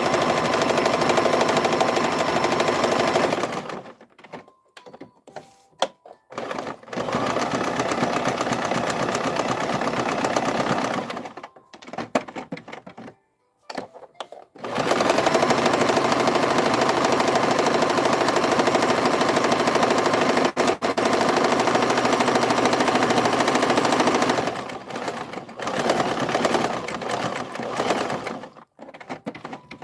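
Domestic sewing machine stitching a narrow zigzag appliqué, running in four spells of a few seconds each, the longest nearly ten seconds, with short stops between.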